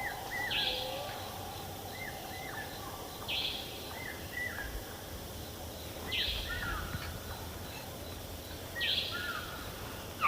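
Faint outdoor ambience with a bird calling: small groups of two or three short, downward-bending chirps, each group with a brief hissy note, repeating about every three seconds.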